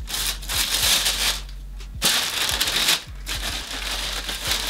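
Sneaker-box wrapping tissue paper rustling and crinkling as it is folded back and a shoe is lifted out, in three stretches with short pauses between.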